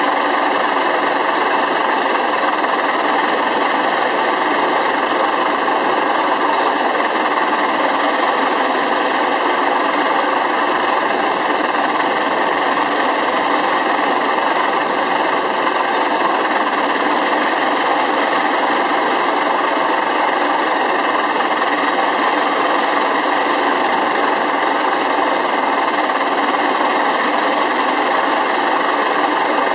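Small steam-shovel swing engine on a Pence Bull Pup steam engine running steadily, its crankshaft turning a belt pulley.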